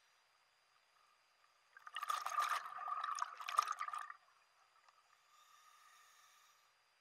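Scuba regulator exhaust underwater: a diver's exhaled breath bubbling out for about two seconds, starting about two seconds in. A much fainter hiss follows near the end.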